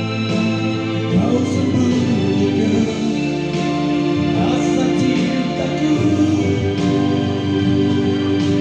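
Slow ballad music: a voice sings long held notes, with a sliding run about a second in, over an instrumental accompaniment, with no clear words.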